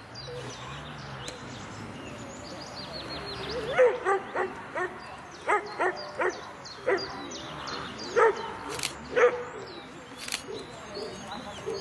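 Dog barking: a run of about a dozen short, irregularly spaced barks between about four and nine and a half seconds in.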